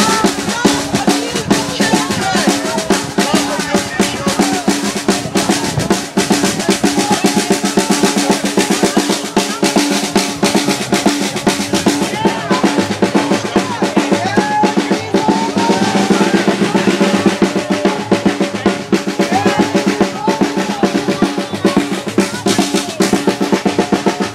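Drums beaten in a fast, unbroken rhythm of rapid strokes close to a roll, with a crowd's voices underneath.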